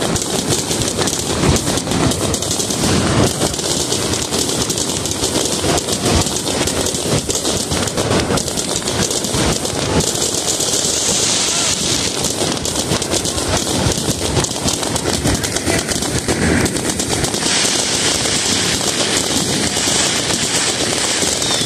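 Fireworks display: aerial shells bursting in a dense, unbroken barrage of bangs and crackling, many reports a second.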